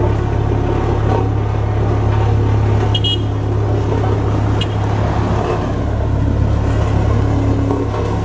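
Diesel engine of a road roller running steadily with a strong low hum. Two short high chirps come about three seconds in and again a second and a half later.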